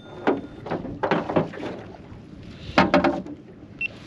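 Men's short excited shouts and laughter in several quick bursts, the loudest near three seconds in.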